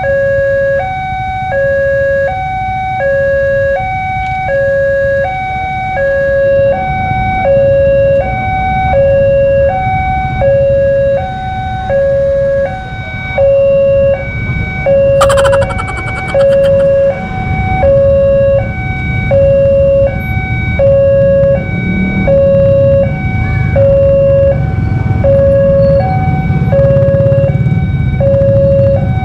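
Railway level-crossing warning alarm sounding a steady two-tone hi-lo signal, about one cycle a second, because the crossing is closed for an approaching train. Underneath is the low rumble of idling motorcycles queued at the barrier.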